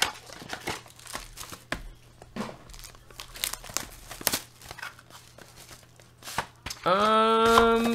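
Plastic-wrapped trading-card boxes and packs being handled on a table: crinkling with scattered light clicks and taps as they are picked up and set down. Near the end a man's voice holds one drawn-out sound.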